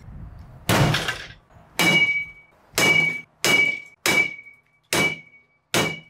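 An aluminium baseball bat strikes the sheet-metal cabinet of a Bosch washing machine seven times, at intervals of about a second. From the third blow on, each hit leaves a short metallic ring.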